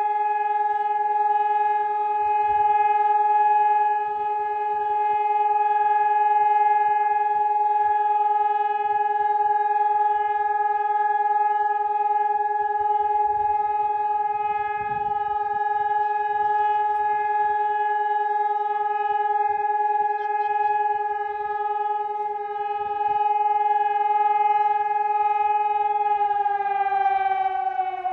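Telegrafia Pavian electronic warning siren sounding a loud, steady continuous tone, the signal used for Slovakia's routine siren test. Near the end the pitch starts to slide down.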